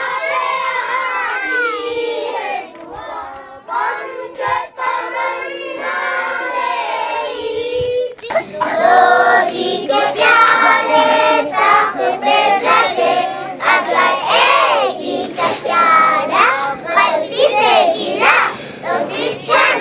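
A group of schoolchildren singing together. A handful of voices at first, then a larger, louder group from about eight seconds in.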